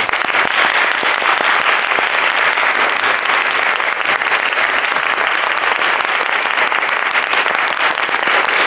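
Audience applauding at the close of a speech: many hands clapping at once in a dense, steady patter.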